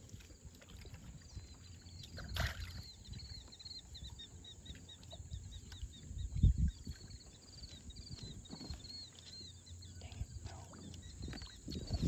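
A small bird twittering in a long run of quick, high chirps, over faint low rumbling with a sharp click and a low bump.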